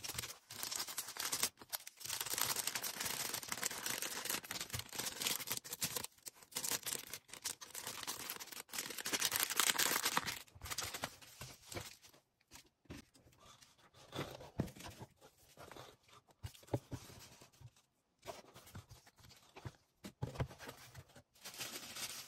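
Packaging being handled while an order is packed: plastic and paper rustling and crinkling, with tearing sounds. Busy for the first ten seconds or so, then in shorter bursts with a few light knocks.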